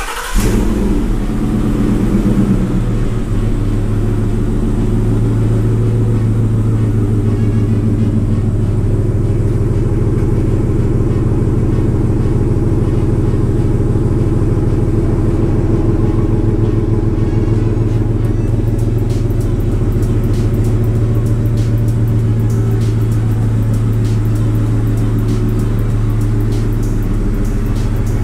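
Pickup truck engine started by remote start, catching right at the start and settling into a steady idle, heard through a lapel mic inside a closed garage.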